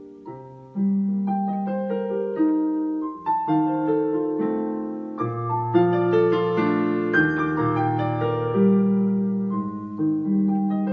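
Piano playing a melody over held bass notes, each note ringing on after it is struck.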